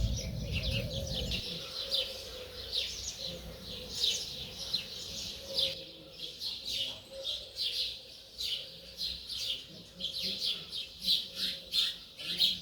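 Several wild birds singing, a dense run of short high chirps and trills. A low rumble at the start fades out about a second and a half in.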